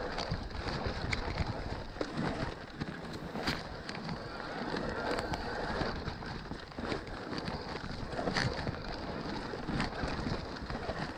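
Wind buffeting the microphone and the tyres of a Scott E-Genius 730 electric mountain bike rolling over a rough trail, with frequent short clattering knocks from the bike.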